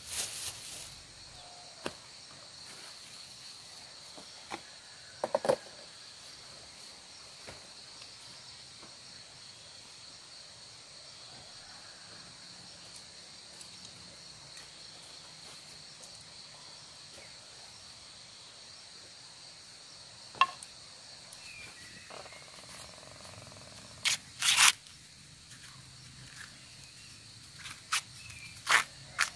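Steady high-pitched drone of insects, with occasional short crinkles and rustles from handling a plastic bag and, near the end, tearing husks off an ear of corn.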